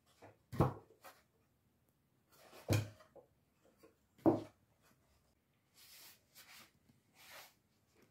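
Wooden board shelf knocking against the tabletop as it is lifted and set down, three solid thuds about two seconds apart, followed by a few soft rustles of a cloth rag.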